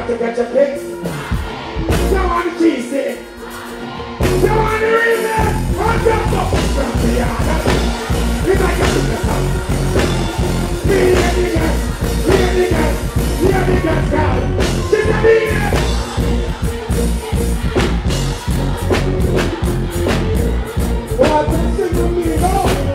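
Live dancehall music on a concert PA: a vocalist chanting into a microphone, with a heavy bass riddim coming in about four seconds in.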